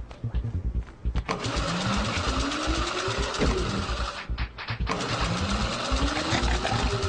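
Cartoon gym treadmill's motor starting up and whirring, its whine rising in pitch over a couple of seconds, over rapid low thumping. It cuts out briefly about four seconds in, then starts and rises again.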